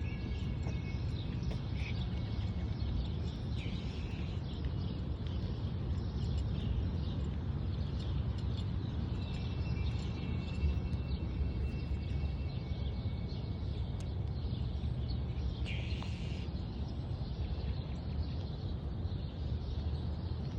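A steady low drone of unclear origin that sounds like a distant train but is not one. Birds chirp faintly over it now and then.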